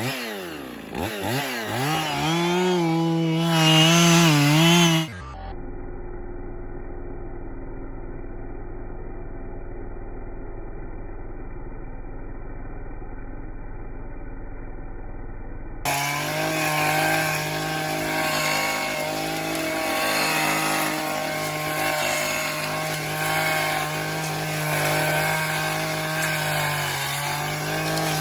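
Two-stroke chainsaw revving up, its pitch rising and wavering. After about five seconds the sound turns to a flat, muffled hum for around ten seconds. Then the saw runs steadily at high speed.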